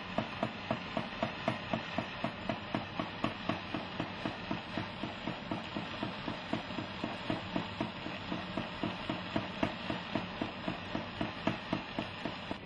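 Goldsmith's soldering torch burning with a steady hiss of flame, under a regular puffing about three times a second.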